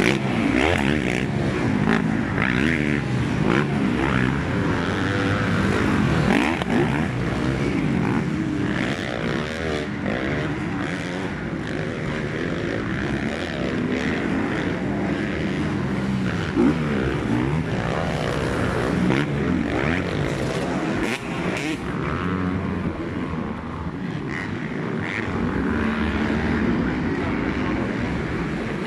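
Several motocross bikes racing round a dirt track, their engines revving up and down and overlapping as the riders accelerate, shift and brake for corners.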